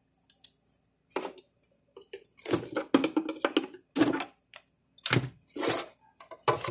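Screwdrivers prying open the plastic case of a Gallagher M1500 electric fence energizer: a string of sharp clicks and clacks of plastic catches and metal tools, with a few louder knocks as the case comes apart.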